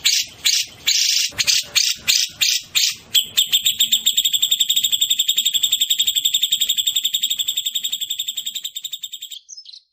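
Sooty-headed bulbul (kutilang) singing: loud separate high notes about three a second, then from about three seconds in a long, fast, even trill of roughly ten notes a second that fades and stops near the end.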